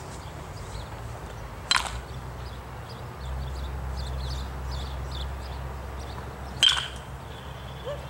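Baseball bat striking pitched balls in batting practice: two sharp hits about five seconds apart, the second followed by a brief ringing tone.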